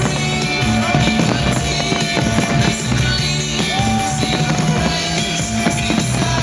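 Loud rock music with drums and bass, with a long held high note that comes twice, the second sliding up into it.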